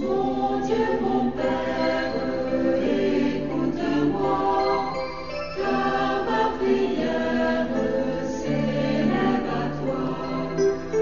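A choir singing a hymn in held chords, several voices together, coming in suddenly at full level.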